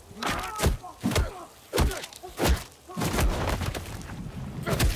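Film fight sound effects: a string of heavy punches landing, deep thuds roughly every half-second to second, with more hits clustered near the end.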